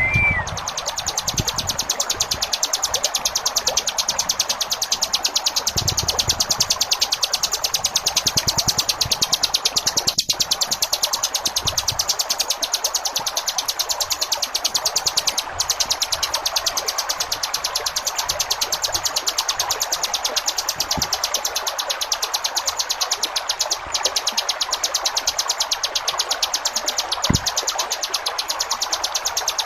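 Ciblek gunung, a mountain prinia, singing its drill-like 'ngebren' song: a very rapid, even trill that runs nearly without a break. Under it is a steady hiss of running water.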